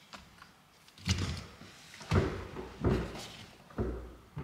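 Four dull thuds about a second apart inside a Ford Mustang's cabin as the driver works the pedals and controls, with no starter cranking: the flood-damaged car recognises the clutch but won't start.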